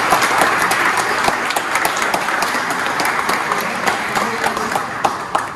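A crowd applauding: many people clapping together, slowly fading toward the end.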